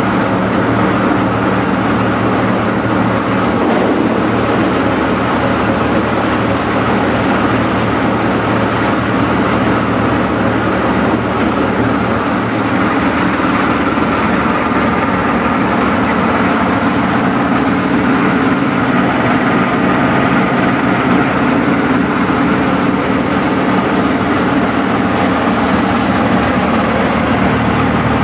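Garlic bulb breaker machine running, its electric motor driving it with a loud, steady mechanical hum while it cracks garlic bulbs apart into loose cloves.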